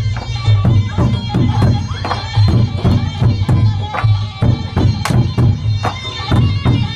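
Traditional Thai martial-arts music played live: Thai barrel drums beating a steady rhythm, about two strokes a second, under a nasal reed-pipe melody, with sharp strikes scattered through.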